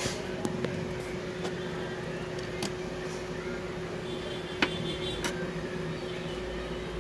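Steady hum with scattered small clicks and taps of tools and laptop parts being handled, the sharpest click about two thirds of the way through.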